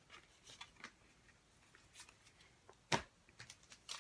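Faint handling of trading cards: soft slides and light taps as cards are flipped through, with one sharper tap or snap about three seconds in.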